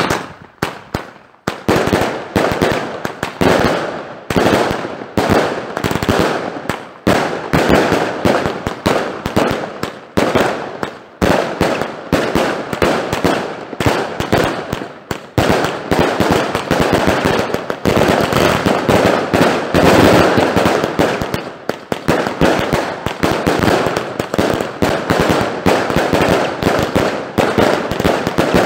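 Wolff Vuurwerk 'Final Fate' 156-shot fan cake firing: a rapid, near-continuous string of launch shots and bursts, many a second, starting abruptly.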